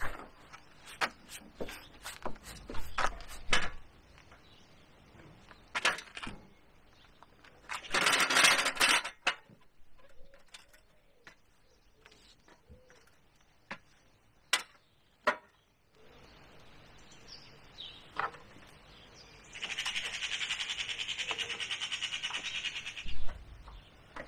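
Scattered knocks, clicks and a rustling scrape as a heavy polyethylene kayak is lifted onto a roof-rack arm of a camper van. Near the end, a few seconds of fast, even rasping as the tie-down strap on the bow is pulled tight.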